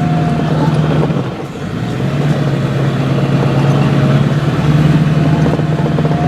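A vehicle being driven, with a steady engine drone and road noise. The engine eases off about a second in, then picks up again.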